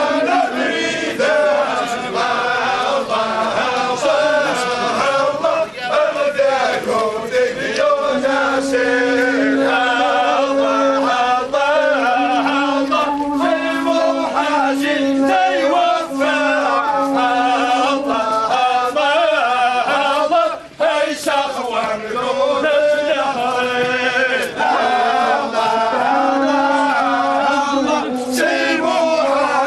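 A large group of men chanting a funeral chant together, a steady held low note under the moving line of the melody, with one short break about two-thirds of the way through.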